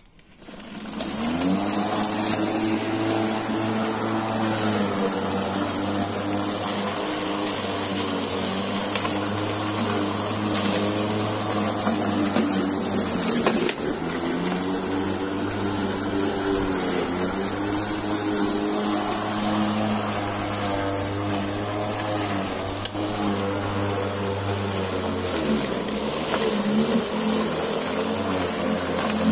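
Ozito PXLMK 4182 twin-battery cordless electric lawn mower spinning up with a rising whine, then running and cutting through long grass. Its pitch sags a few times as the motor bogs under the load of the thick grass.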